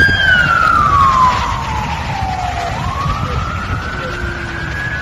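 Ambulance siren wailing over a low rumble. One slow wail slides down in pitch over the first few seconds, then climbs again and starts to fall just at the end.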